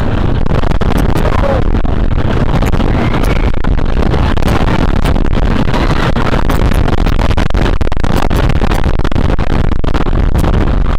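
Wooden roller coaster train running at speed on RMC Topper Track: loud, steady wind rush over the microphone with a constant rattle and clatter from the track.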